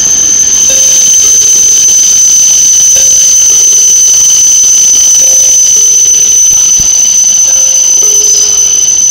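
Steady high-pitched squeal of train wheels. Under it a low two-note signal tone repeats about every two seconds.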